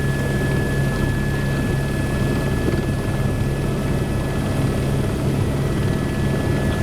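Helicopter engine and rotor noise, a steady loud drone with a constant high whine over it.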